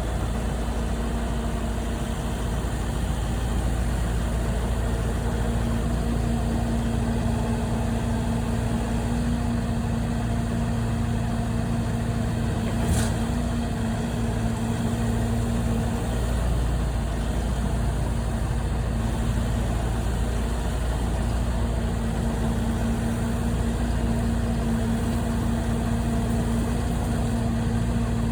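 An engine idling steadily, a constant low hum with a steady tone, with a single sharp click about thirteen seconds in.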